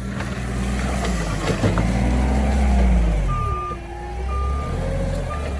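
Forklift engine revving up and then easing off, with its reversing alarm beeping about once a second from about three seconds in.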